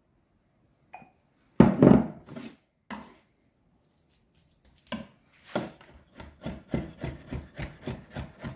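A few loud knocks on a wooden cutting board about two seconds in, then a chef's knife chopping raw beef on the board, about three strokes a second from about five seconds in.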